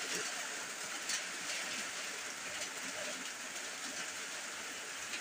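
Heavy rain falling steadily on the ground and puddles, an even hiss with a few faint drop ticks.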